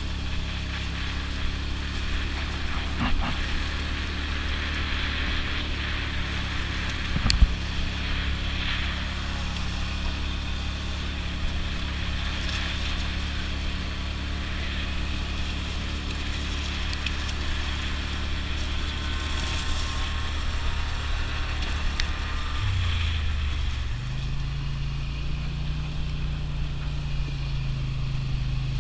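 Polaris 850 XP ATV's parallel-twin engine running steadily while riding, the revs rising about two thirds of the way through. A sharp knock about seven seconds in, and a smaller one earlier.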